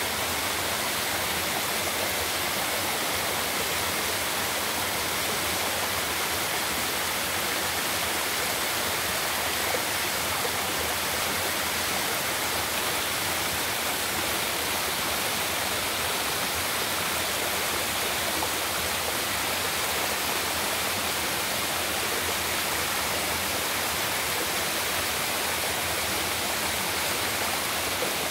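Waterfall on a mountain stream: a steady, even rush of falling water.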